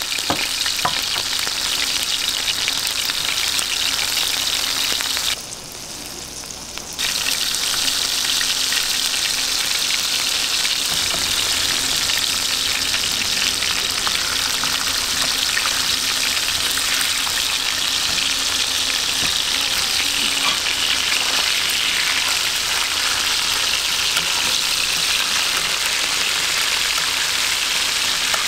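Steak slices frying in very hot butter, about 300 degrees, on a ceramic plate: a dense, steady sizzle. It drops away briefly about five seconds in, then comes back at full strength.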